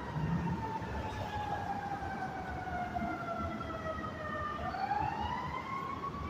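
Emergency-vehicle siren wailing, its pitch sliding slowly down for about four seconds and then sweeping quickly back up near the end, over a low rumble of street noise.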